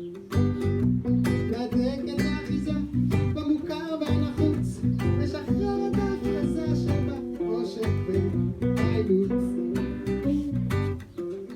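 Background music: a strummed acoustic guitar song with a steady beat, and some singing.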